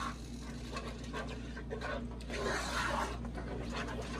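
A black spatula stirring a thick, creamy sour-cream and cream-of-mushroom mixture in a nonstick pot, scraping and rubbing against the pot's sides and bottom in repeated strokes.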